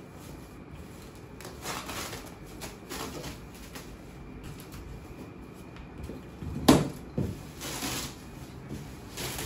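Plastic packaging wrap crinkling and tearing as it is pulled off a cardboard treadmill box, in scattered rustles. A sharp knock, the loudest sound, comes about two-thirds of the way through, with a smaller one just after.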